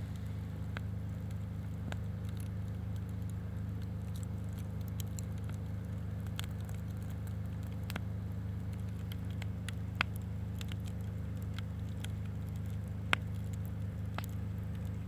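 Campfire burning, with irregular sharp crackles and pops over a steady low rumble; two louder pops come about ten and thirteen seconds in.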